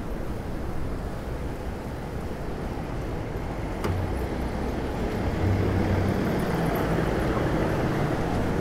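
City street traffic heard while riding: a steady wash of road noise, with a vehicle's low engine hum growing louder past the middle and a single sharp click a little before that.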